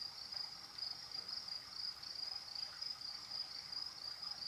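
Crickets chirping in a steady, high-pitched, pulsing chorus.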